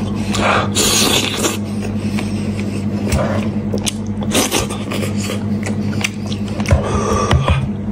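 Close-up eating sounds: biting, chewing and sucking at meat from a spicy braised head, with wet tearing as pieces are pulled off by hand. A steady low hum runs underneath.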